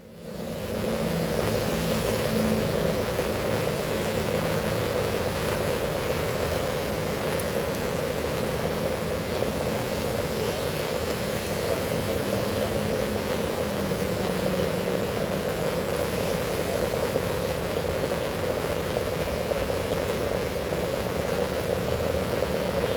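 Heavy rain pouring down in a steady, unbroken rush. It rises in over the first second and then holds constant.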